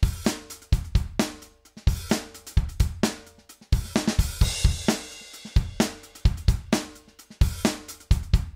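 Acoustic drum kit loop of kick, snare, hi-hats and cymbals, with a cymbal wash about four seconds in. It plays through an emulated UREI 1176 FET compressor (Arturia Comp FET-76) set to very fast attack and fast release at high ratios, giving snappy, heavily compressed hits.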